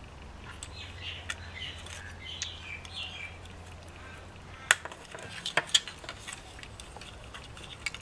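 Small sharp clicks and taps from handling a wireless door chime's push-button unit, with a coin-cell battery pressed into its holder and the circuit board fitted into the plastic case. The loudest clicks come in a quick cluster about five seconds in.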